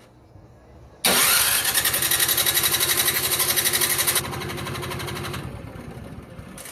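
Electric starter cranking the snowblower's Briggs & Stratton 163cc engine, starting suddenly about a second in with a fast, even pulsing for about three seconds, then dropping off and winding down. The engine is being turned over for a spark check and does not fire.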